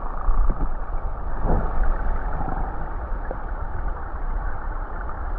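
Muffled, steady rushing of a fast-flowing rocky mountain stream, heavy in low rumble, with a couple of faint knocks.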